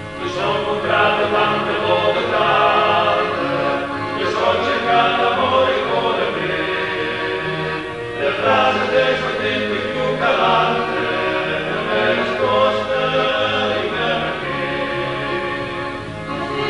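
Background choral music: a choir singing slow, sustained phrases over a steady low bass line.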